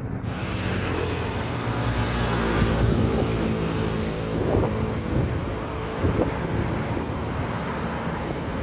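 Motor vehicle running, a steady engine hum under road and wind noise that swells over the first couple of seconds.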